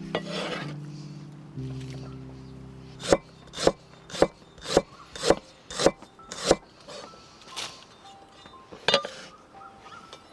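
Soft background music with held notes. A few seconds in comes a run of about seven sharp knocks on a wooden surface, roughly two a second, followed by lighter knocks and scraping.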